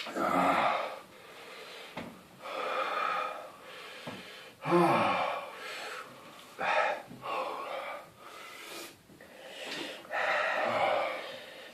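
A man breathing hard through his mouth, about eight loud breaths drawn in and blown out a second or two apart, a couple of them with a short groan. This is the panting that comes with the burn of a superhot chilli pepper.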